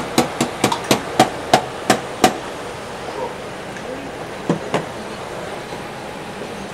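Sharp metal clacks, about three a second for the first two seconds, from a wire pasta basket and steel tongs as cooked pasta is lifted out of the pasta cooker and tonged into a pan. Two more clacks come about halfway, over a steady kitchen hiss.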